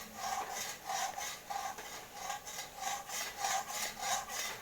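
A spatula scraping back and forth across the bottom of a frying pan in a steady rhythm of about two strokes a second, stirring chopped onion browning in hot oil.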